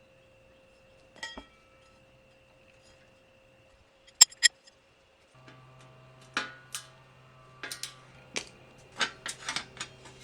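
Sharp metallic clicks and clinks from tools and bike parts being handled. There are two loud clicks about four seconds in and a run of irregular taps in the second half. A steady low hum starts about five seconds in.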